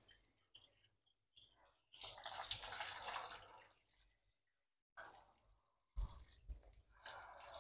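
Faint spray of water from a handheld shower hose running over a dog's coat in a grooming bath, in two spells a few seconds apart. A short low thump comes about six seconds in.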